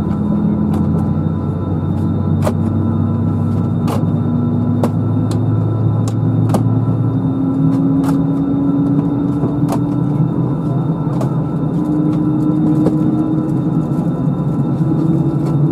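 Cabin noise of an Airbus A320-214 taxiing, heard from over the wing: a steady hum from its CFM56 engines whose pitch rises slowly throughout. A light click sounds every second or so.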